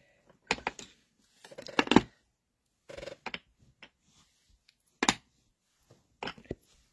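Handling noises of stamping supplies on a cutting mat: a clear acrylic stamp block and clear stamp set down and picked up, heard as about five short knocks and rustles, the loudest about two seconds in.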